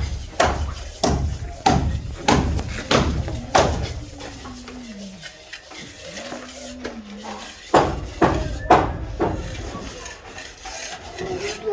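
Hand tools striking hard material in a steady working rhythm, about one and a half strikes a second, pausing in the middle while a long drawn-out voice-like call rises and falls, then resuming with four more strikes near the end.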